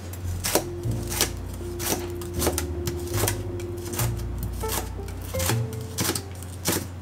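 Kitchen knife chopping food on a cutting board, a run of sharp cuts at roughly two a second, over soft background music.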